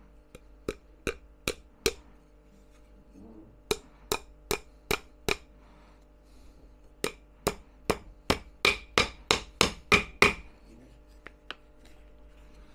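Hammer driving thin glass nails (panel pins) into a thin wooden batten: three runs of even strikes, about two and a half a second, with pauses between. The last and longest run, of about ten strikes, is the loudest.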